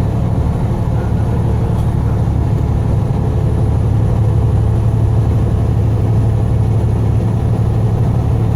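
Steady low engine and road drone inside a moving vehicle's cab, with no change in pace.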